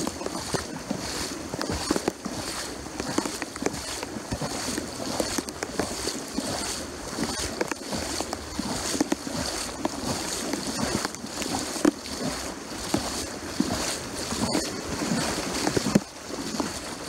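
Person wading through floodwater, the water sloshing and splashing irregularly with each step.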